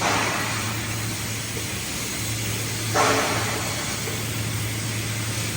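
Paint spraying machine running with a steady low hum, and two bursts of spray hiss from the paint gun, one at the start and one about three seconds in, each fading over about a second.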